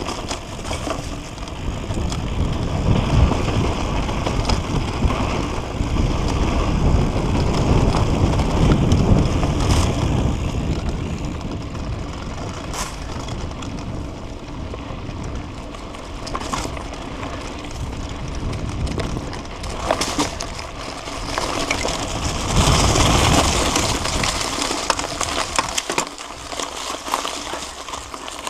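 Mountain bike riding down a dry dirt trail, heard from a camera on the bike: tyres crunching over dirt, stones and dry leaves, with the bike rattling and wind buffeting the microphone, louder in stretches.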